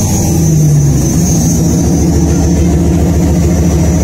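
A 1993 Dodge Dakota's 318 Magnum V8 running just after starting, a little higher and louder in the first second before settling into a steady idle. It is being run briefly to circulate freshly added oil before the dipstick is checked.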